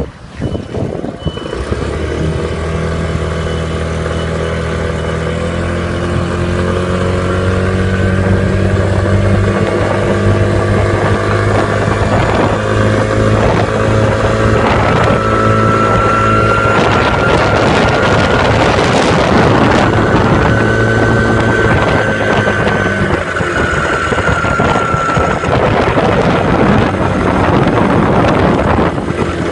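OZS150 scooter running, with a high whine that comes in about halfway through, rises and falls slightly, then fades: an abnormal noise from around the CVT drive.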